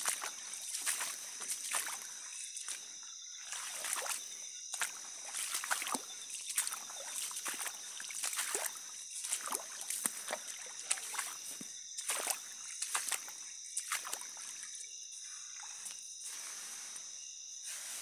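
Footsteps squelching and sloshing through wet mud on a forest trail at a walking pace, over a steady high-pitched tone.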